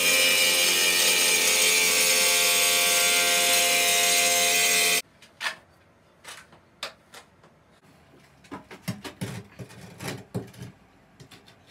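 Electric tile saw running and cutting through a large tile, a steady motor whine with grinding hiss that stops abruptly about five seconds in. After that, faint scrapes and light taps of a notched trowel spreading mortar on the back of a tile and the tile being pressed into place.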